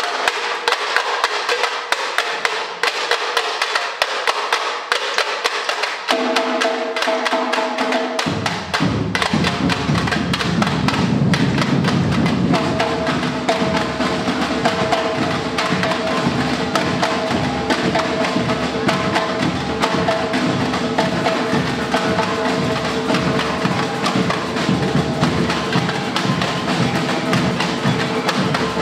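Samba batucada percussion ensemble playing: rapid tamborim strokes carry the rhythm alone at first, then the deep surdo bass drums come in about eight seconds in and the full drum section plays on together. A few steady held notes sound underneath.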